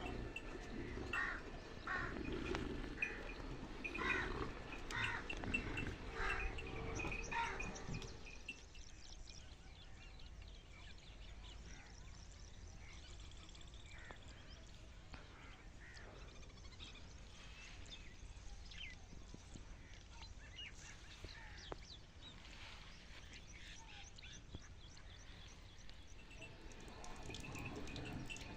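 Repeated short animal calls, several a second, through the first eight seconds or so, then a quieter stretch with faint scattered chirps.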